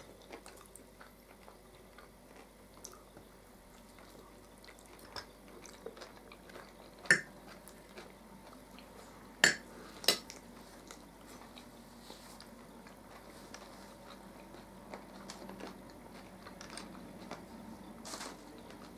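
Fork clinking against a plate during a quiet meal. It gives a sharp clink about seven seconds in and two more close together a couple of seconds later, with softer taps in between.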